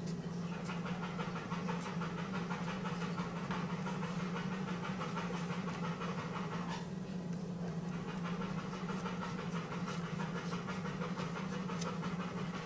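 Scissors cutting thick leather, a few faint snips, over a steady low hum and a continuous breathy noise.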